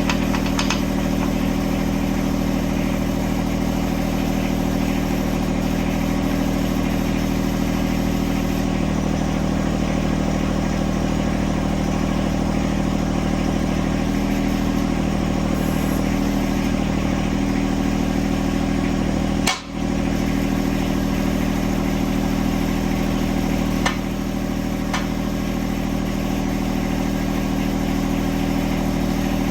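A John Deere 1026R compact tractor's three-cylinder diesel engine idling steadily, with a brief dropout about two-thirds of the way through and a couple of light clicks afterwards.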